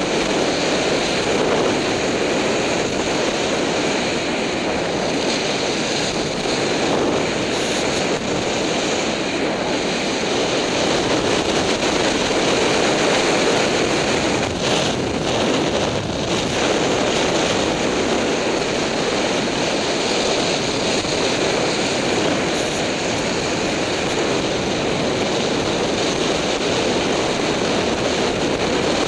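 Steady rush of wind over a skier's body-worn camera microphone during a fast downhill run, mixed with the skis sliding and scraping over packed snow.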